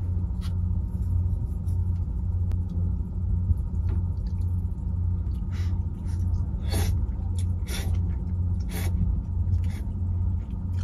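Chanpon noodles slurped from a bowl with chopsticks, three short slurps about a second apart midway through, over a steady low rumble.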